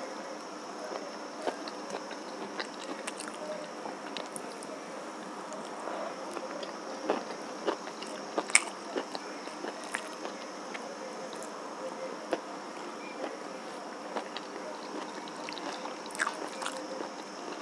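Close-miked eating sounds: a person biting and chewing, with scattered sharp crunches and clicks, while fingers mix rice on a steel plate. The bites include raw green chilli.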